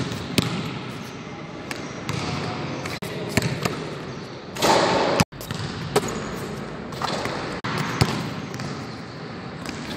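A basketball bouncing on a hard gym floor as a player dribbles, sharp irregular thuds with footsteps between them. About halfway through there is a louder noisy stretch lasting about half a second.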